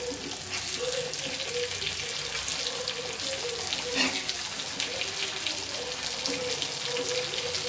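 Seer fish steaks shallow-frying in oil on a black iron tawa: a steady sizzle full of fine crackles. A single knock of the metal spatula against the pan about four seconds in.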